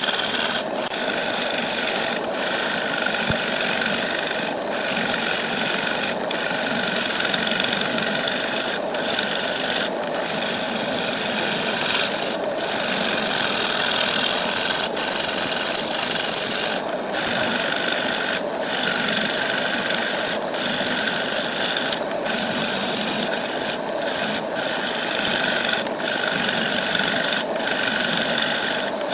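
A tool scraping the edge of a large wooden disc spinning on a wood lathe: a continuous hissing cut, broken by brief gaps every second or two as the tool is lifted off.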